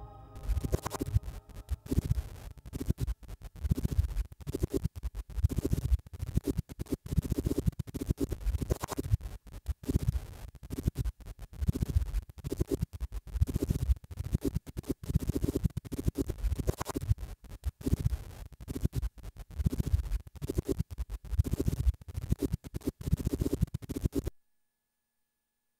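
Dense scratchy, crackling noise full of rapid clicks, over a pulsing low throb, cutting off suddenly near the end.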